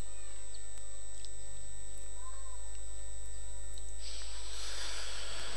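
Steady electrical hum of a microphone and PA system with faint distant voices during a pause in Quran recitation. About four seconds in comes a breathy rush lasting a couple of seconds as the reciter draws breath close to the microphone before the next verse.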